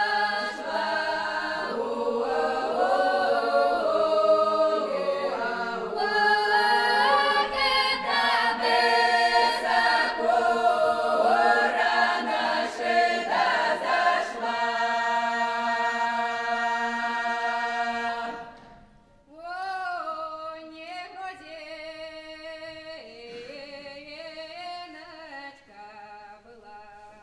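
Folk choir singing a traditional Kuban Cossack song a cappella in full open voice, ending on a long held chord about two-thirds of the way through. After a short break, softer singing by fewer voices begins, with sliding pitches.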